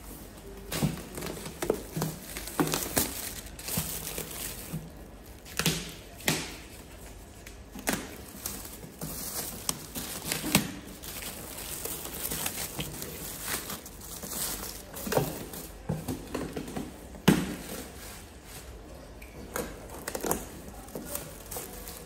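Black plastic bag packaging crinkling and tearing as it is cut open and pulled away from a cardboard box, in irregular rustling bursts with sharp crackles.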